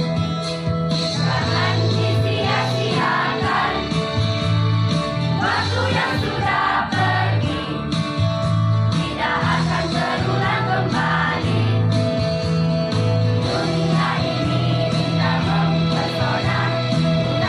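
Teen choir singing over an instrumental backing, with a bass line moving back and forth between two low notes.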